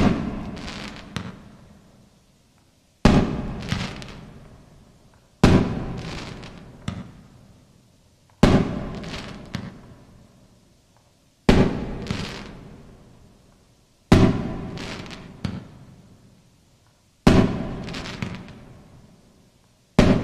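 A Crackling Thunder 12-shot consumer fireworks cake firing its aerial shots one at a time, eight in all, about every three seconds. Each shot is a sharp bang followed by a fading tail of smaller crackling pops.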